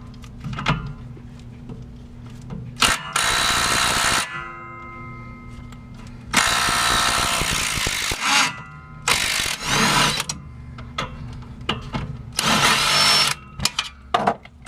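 Power drill driving a 17 mm socket in four runs of one to two seconds each, backing out a shock absorber's mounting bolt, with small metallic clicks between the runs.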